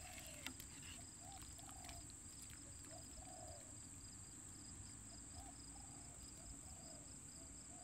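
Faint outdoor ambience of a steady high-pitched insect drone, with a scattering of short, low animal calls now and then.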